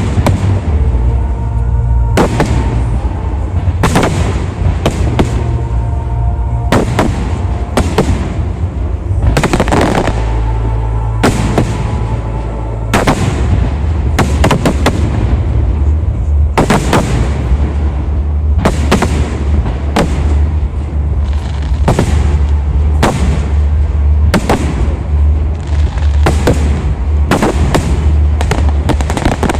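Fireworks display: aerial shells bursting in a dense, irregular series of sharp bangs, roughly one a second, over a steady low rumble.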